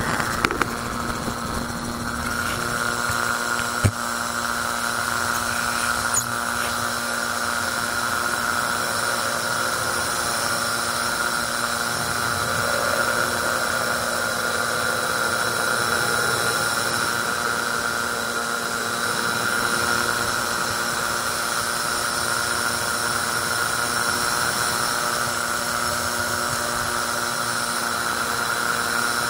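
Magni M16 autogyro in cruise flight, heard from its open cockpit: the engine and pusher propeller run at a steady drone with a steady high whine on top. A couple of brief sharp clicks come in the first few seconds.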